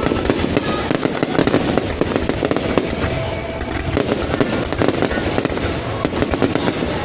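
Fireworks crackling in a dense, continuous barrage of rapid pops with no pauses.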